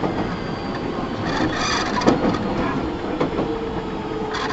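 Nagoya Municipal Subway 5050 series electric train heard from inside the car while under way: steady running noise of wheels on rail, with a sharp knock about two seconds in.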